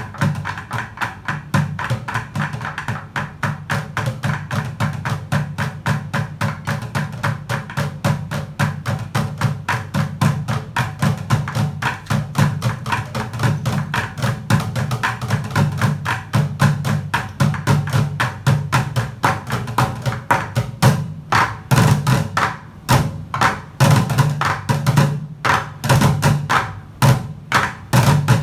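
Bucket drumming: five players beating upturned plastic buckets with drumsticks in a fast, steady ensemble rhythm. About three-quarters of the way through, the strokes turn louder, sharper and more spaced out.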